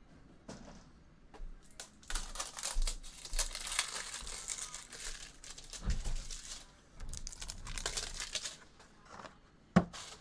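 Foil trading-card pack wrapper being torn open and crinkled, a run of crackling from about two seconds in until near the end, followed by one sharp tap.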